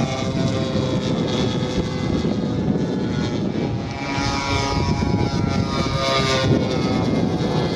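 Twin propeller engines of a large-scale radio-controlled F-82 Twin Mustang model flying past, a steady buzzing drone whose pitch slides down partway through as the model passes.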